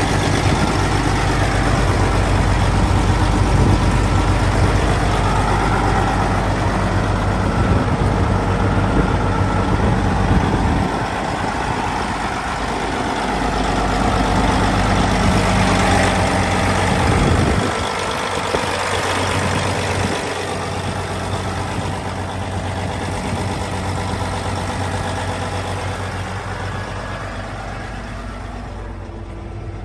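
Cat Challenger MT865 tracked tractor's C16 six-cylinder diesel engine idling steadily. It is loudest close to the engine bay and becomes quieter and duller from a little past halfway, as heard from the cab.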